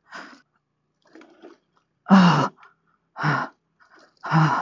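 A scooter rider breathing heavily into her helmet microphone: three loud, breathy exhales about a second apart, starting about two seconds in. It is the nervous breathing of a rider frightened on a steep, rutted dirt descent.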